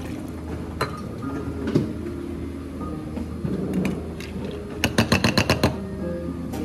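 Small stainless steel pitchers clinking against the rims of stainless steel cups as they are emptied: a few single clinks, then a quick run of about eight sharp metal clinks. A steady low hum runs underneath.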